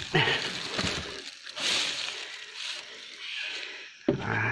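Irregular rustling and crackling of leaves and twigs, with a sharp knock at the start and another near the end.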